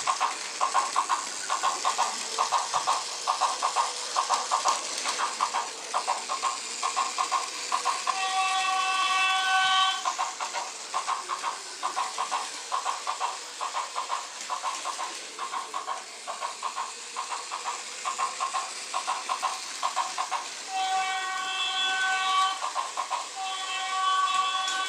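Plarail Tokai 313 series toy train running with its sound unit on, playing a rhythmic clickety-clack of rail joints through its tiny speaker. The sound unit sounds a train horn three times, each a steady chord lasting about one and a half seconds: once about 8 seconds in and twice near the end.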